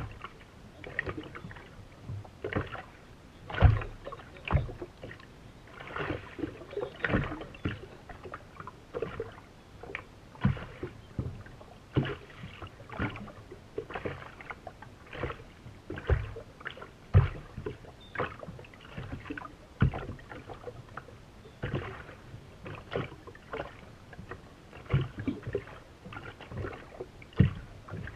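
Small waves slapping against a race boat's hull, heard as irregular knocks and splashes every half second to a second, with no engine running steadily under them.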